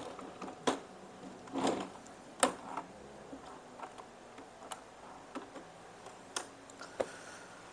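Epson EB-X06 projector being turned over by hand on a wooden bench: a handful of light, irregular clicks and knocks from its plastic casing, roughly one a second.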